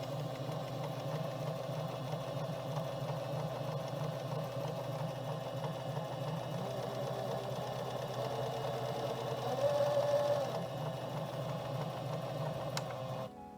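JUKI HZL-28 household sewing machine running steadily at speed, its horizontal rotary hook turning smoothly with the bobbin case staying seated. A brief higher whine rises about ten seconds in, and the machine stops near the end.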